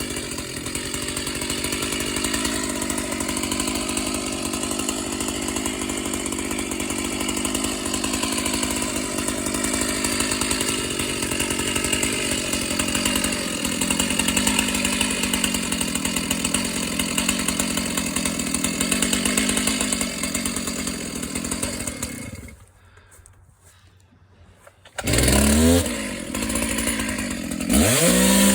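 Chainsaw running steadily at speed for a little over twenty seconds, then falling quiet for a couple of seconds. Near the end it is revved up sharply twice, its pitch rising each time.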